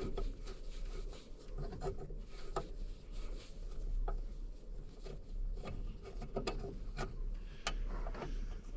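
Screwdriver working a screw out of a Willys Jeep headlight rim: irregular light clicks and short scrapes of tool on metal, over a low steady rumble.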